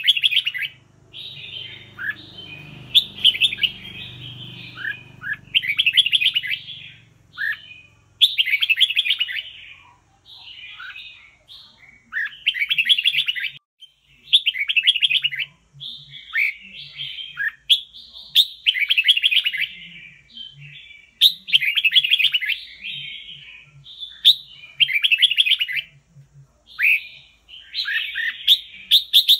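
Red-whiskered bulbul singing: short, high, chattering warbled phrases, each about a second long, repeated every second or two with brief pauses between.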